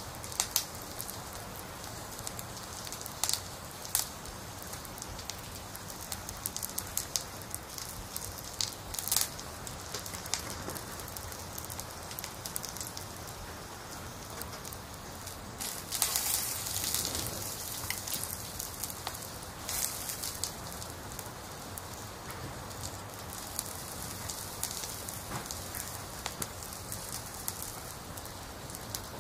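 Hot oil and meat chunks sizzling and crackling in an aluminium cooking pot, with sharp pops of spattering oil. The sizzle swells louder for a moment about sixteen seconds in.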